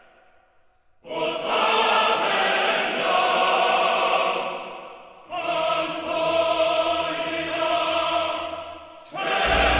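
Background music of sustained choir-like chords. It comes in about a second in after a brief hush, shifts to a new chord about halfway through, and shifts again near the end, where a deep bass enters.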